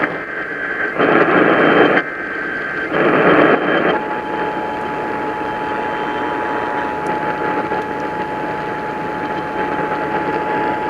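Emergency Alert System alert heard through a hissy radio receiver: the last bursts of the SAME data header, a few harsh bursts about a second apart, then the steady attention tone starting about four seconds in and holding through the rest.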